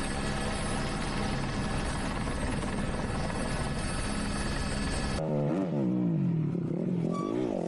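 Steady helicopter noise for about five seconds, then a rally motorcycle's engine revving up and down repeatedly as the bike rides past on sand.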